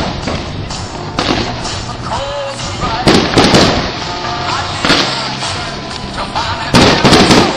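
Aerial fireworks shells bursting: several booms a second or two apart, with a quick cluster of the loudest bursts near the end.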